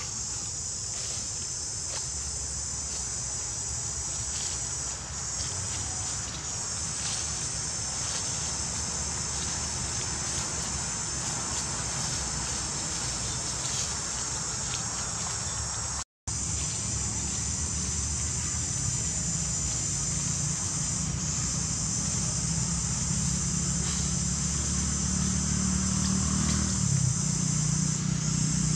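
Steady, high-pitched drone of a forest insect chorus over a low rumble that grows louder in the second half. The sound cuts out for an instant about sixteen seconds in.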